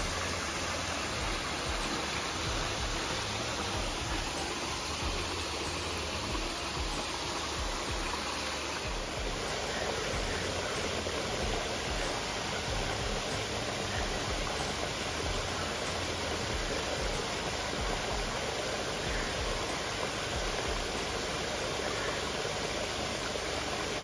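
Small waterfalls splashing over rocks into a pond: a steady rush of falling water.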